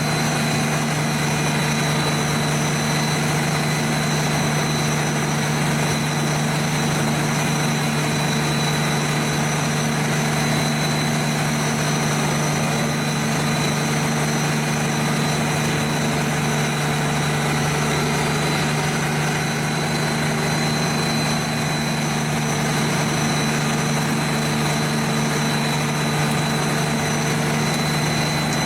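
Large forestry wood chipper's engine running at a steady pitch, a constant low hum with a thin high whine, with no wood being fed through.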